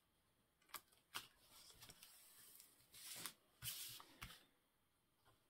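Faint handling of paper and card: two sharp taps, then two short spells of paper rustling and a final tap a little after the middle.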